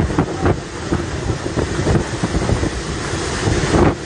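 Typhoon-force wind buffeting the microphone in rumbling gusts, with surf surging over the shore. A stronger gust swells near the end and then drops away.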